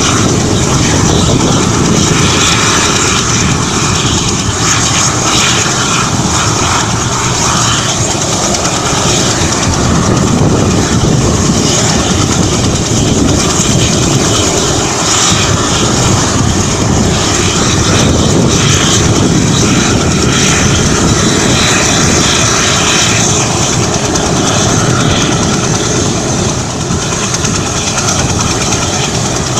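Mil Mi-17 transport helicopter running on the ground with its rotors turning: loud, steady turbine and rotor noise.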